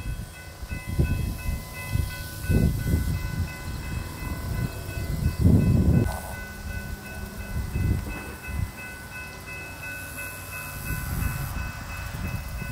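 Wind gusting on the microphone in uneven swells of low rumble, strongest about halfway through. A faint, steady high hum of several pitches runs underneath.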